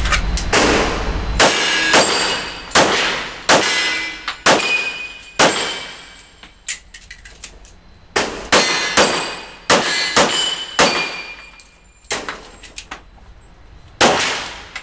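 Handgun firing a string of rapid shots at steel plate targets, the steel ringing with a clang after hits. The shots come in quick bursts with short pauses between.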